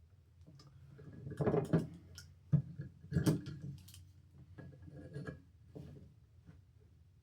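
Handling noise from a small metal alarm horn being turned over and worked at by hand: irregular knocks, clicks and scrapes, the sharpest a few seconds in, with quieter fiddling toward the end.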